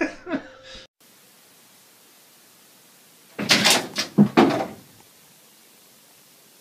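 A brief clatter of several knocks and bumps about three and a half seconds in, lasting just over a second, like something hitting furniture or a door.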